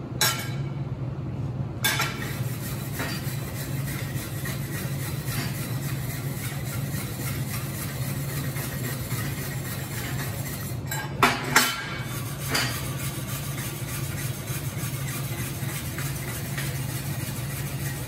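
Hand wire brush scrubbing rust off a steel plate to clean it for welding, a fast steady scratching that starts about two seconds in. A few sharp metal clinks come near the start and about two-thirds of the way through, over a steady low hum.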